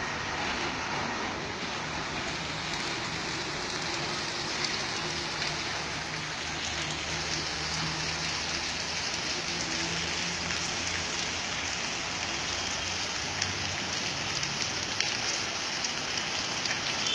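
Water spraying steadily onto a tourist bus in a rain test, sounding like a heavy downpour on the bus body. A faint low hum runs underneath through the middle.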